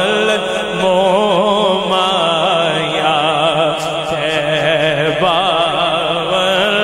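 A man singing a Punjabi naat unaccompanied, holding long notes that waver and turn in melismatic ornaments, over a steady low drone.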